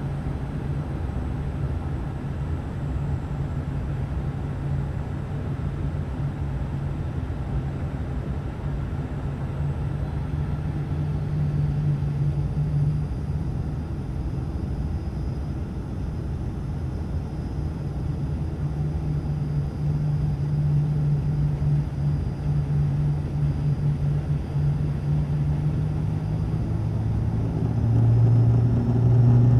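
Cabin drone of an ATR turboprop airliner on its way down to land: a steady propeller hum over rushing air noise. In the last few seconds the hum shifts lower and grows louder as the engine power changes.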